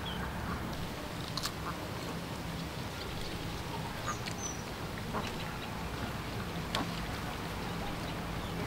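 Ducks quacking in the background over a steady low hum, with a few short high bird chirps and scattered light clicks and rustles from branches being handled as jujubes are picked.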